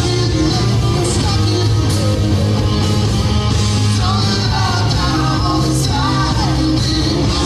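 Live rock band playing: electric guitars, bass and drums, with a male lead voice singing at times.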